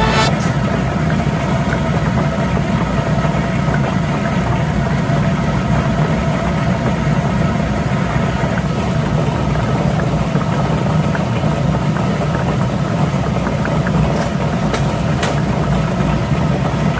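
A small motor running with a steady hum, with a few short clicks near the end.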